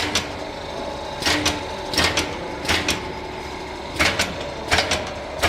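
Automatic 42-mould shoe-sole machine running: a steady hum under sharp mechanical clanks that come in quick pairs, most often about every 0.7 s, with a couple of longer pauses.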